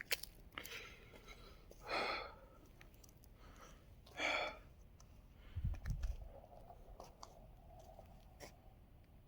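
A person breathing out heavily twice, about two seconds apart, with a few small clicks and a brief low rumble of microphone handling.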